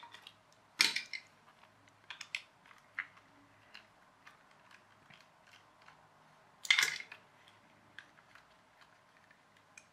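Handling of small plastic and circuit-board parts of a toy RC car: scattered light clicks and ticks, with two louder clattering clicks about a second in and again near seven seconds.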